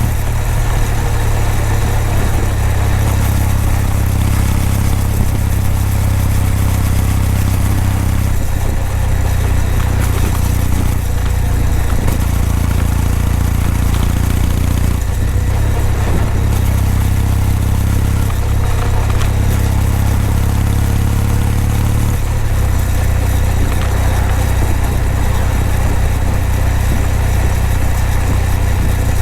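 Kawasaki W800's air-cooled parallel-twin engine and exhaust running at a steady cruise while riding. The engine note holds steady, then drops to a lower pitch about 22 seconds in as the revs fall.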